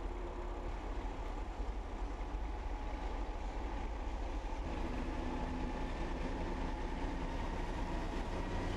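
Two DB Class 232 diesel locomotives passing, their engines running with a steady low drone and rumble.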